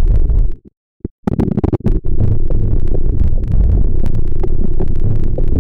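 Pen or stylus scratching and clicking on a writing tablet during handwriting, over a steady low hum and rumble. The sound cuts out for about half a second near the start.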